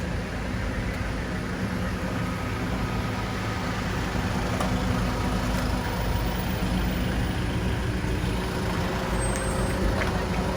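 Heavy vehicle's engine running steadily close by, a low, even drone.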